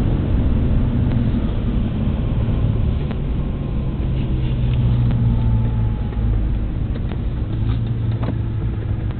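Suzuki Vitara V6 engine and tyre noise heard from inside the cabin while driving on a paved road: a steady low drone. A few faint clicks sound about three seconds in and again near the end.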